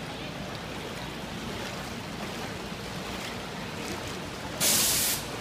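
Steady wash and slosh of knee-deep floodwater as people wade through it. About four and a half seconds in, a sudden loud hissing burst lasts about half a second, then cuts off.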